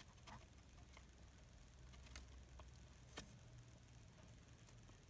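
Near silence: low room hum with a few faint soft ticks as fingers handle the slit, leathery shells of hatching python eggs, the clearest tick about three seconds in.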